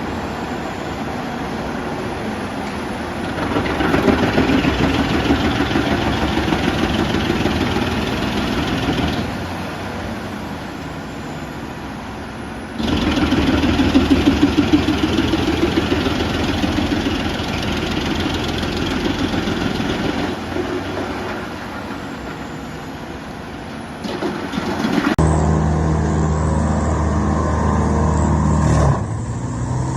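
Wood chipper running, with long swells of louder grinding as wood is fed through it. About 25 seconds in, the sound cuts to a steady engine hum.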